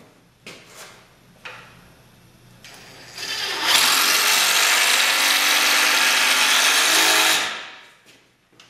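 Power drill with a Phillips bit driving a screw into the log chair's wooden frame, running steadily for about four seconds before stopping, after a few light knocks.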